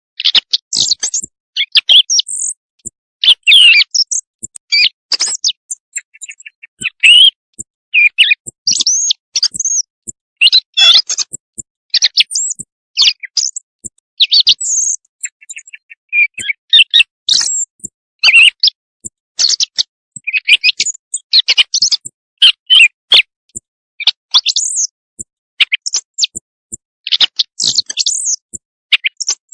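Recorded bird calls played as a night-time hunting lure: a quick, irregular run of short, high chirps and squeaky notes with brief silent gaps between them.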